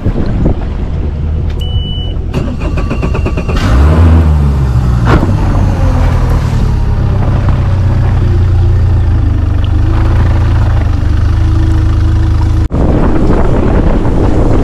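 Mercury Pro XS outboard motor starting: a short beep, a brief burst of cranking, then the engine catches with a loud rev and settles into a steady idle. Near the end the sound changes to the boat running on the water, with wind on the microphone.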